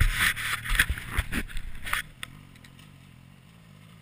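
BMW R1200GS boxer-twin motorcycle engine running with a low steady hum, under a loud rough rushing noise with knocks that cuts off suddenly about halfway through, leaving the engine idling quietly.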